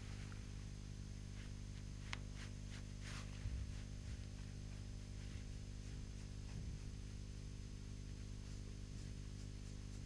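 Steady low electrical mains hum with faint hiss, broken by a sharp tick about two seconds in and a few faint taps soon after.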